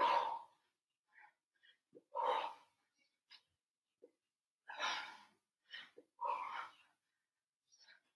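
A woman's forceful, breathy exhalations as she works through rowing crunches: several short puffs of breath at uneven intervals of one to three seconds, with quiet in between.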